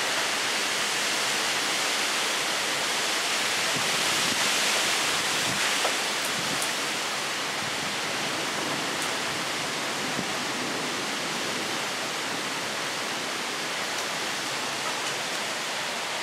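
Thunderstorm downpour with storm wind in the trees: a steady, dense hiss that swells slightly about four to five seconds in.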